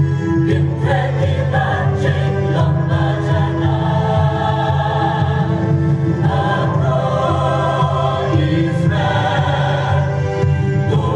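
Mixed choir of women's and men's voices singing together, holding long sustained notes.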